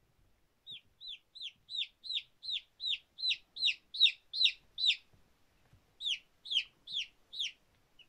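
Baby chicks peeping: a quick series of about a dozen high, downward-sliding peeps that grow louder. A brief pause follows about five seconds in, then four more peeps.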